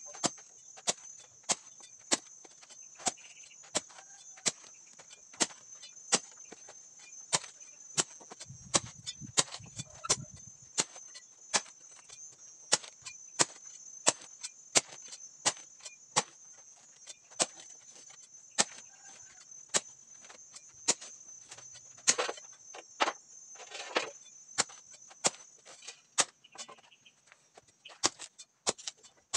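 A long-handled digging tool's blade chopping into turf again and again, cutting an outline along a string line, in short sharp strikes about one and a half a second. A steady high-pitched drone sits behind the strikes.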